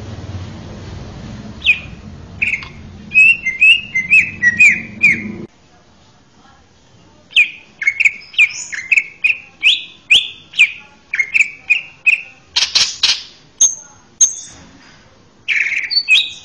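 Male greater green leafbird (cucak ijo) singing: quick runs of short, sharp, downward-slurred whistled notes, with a pause of a couple of seconds a third of the way in. Near the end come two harsh, rasping notes.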